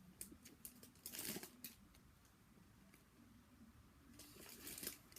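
Faint rustling as hands handle and squeeze a soft foam squishy toy, in two short bursts, about a second in and again near the end.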